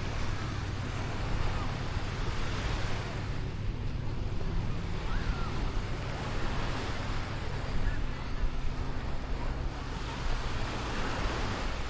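Black Sea waves washing on the shore, with wind buffeting the microphone and faint voices of people on the beach.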